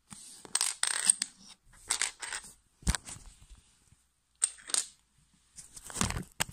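Plastic Lego Technic L-shaped liftarms handled and set down on a wooden table: light clicks and short clattering rattles in about five separate bursts.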